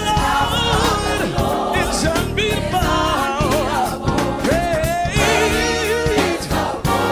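Gospel song with a lead singer and choir, backed by instruments.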